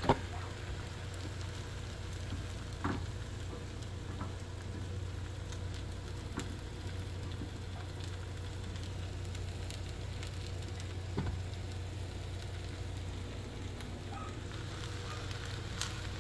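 Shrimp sizzling steadily in hot oil in a HexClad hybrid stainless pan, with a sharp knock right at the start and a few fainter clicks of tongs against the pan as the shrimp are turned.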